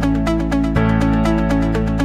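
Electronic dance music with a steady beat and sustained synth chords.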